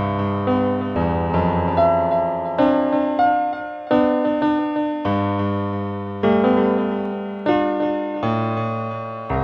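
Background keyboard music in a piano sound: chords and melody notes struck and left to fade, a new one every half second to a second.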